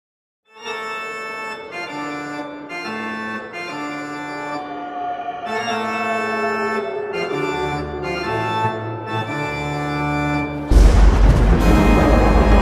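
Background music: sustained organ chords that change every second or so, then a sudden louder, denser passage with deep bass about eleven seconds in.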